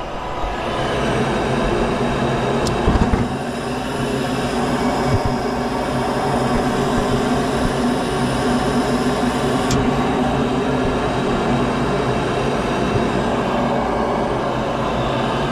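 York gas furnace running: a steady motor drone with a hum of even tones over a rushing of air, swelling slightly about a second in.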